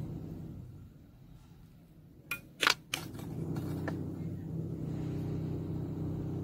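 A few sharp little clicks from handling copper wire and pearl beads, three close together about two and a half seconds in and one more a second later, over a steady low hum.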